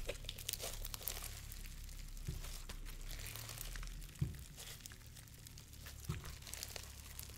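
Clear bingsu slime packed with tiny beads being squished and stretched by hand: faint, crisp crackling and crunching with a few louder pops.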